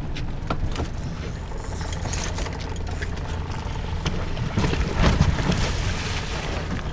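Steady low rumble of a boat underway on the water, with wind on the microphone. Scattered light knocks, and a louder rush of water and rustling about five seconds in.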